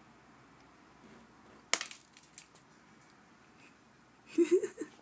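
A dry Ruellia tuberosa seed pod bursts open on contact with water with a single sharp snap about two seconds in, followed by a few lighter ticks. Near the end comes a short burst of giggling.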